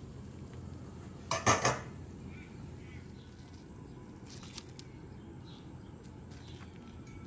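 Kitchen utensils clattering: three quick, sharp knocks close together about a second and a half in, with a fainter click near the middle, over a steady low background.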